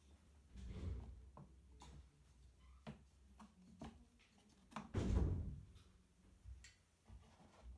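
Handling noise close by: a canvas tote bag brushing and rustling, with scattered light clicks and knocks. The loudest rustle comes about five seconds in.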